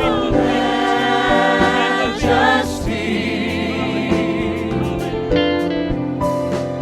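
Gospel music: a choir singing over instrumental accompaniment, with sustained chords and a sliding guitar line.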